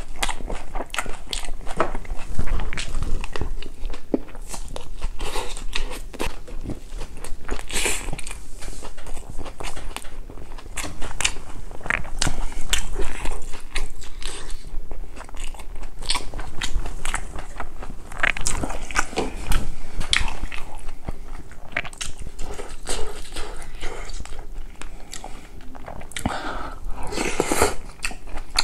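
A person chewing mouthfuls of food close to a clip-on microphone: irregular wet crunches and small clicks that go on throughout.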